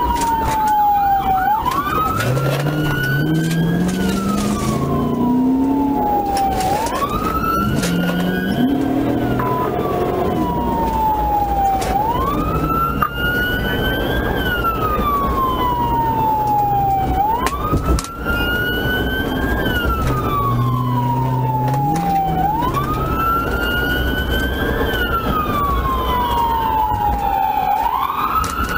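Police car siren on a wail, each cycle sweeping up quickly and falling away slowly, about every five seconds, over steady road noise. Underneath, the patrol car's engine revs up under hard acceleration a few times.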